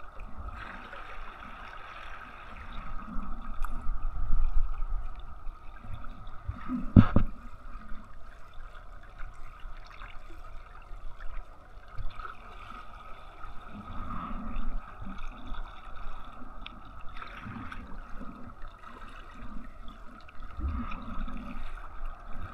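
Water lapping and gurgling against a kayak's hull, with one sharp knock about seven seconds in.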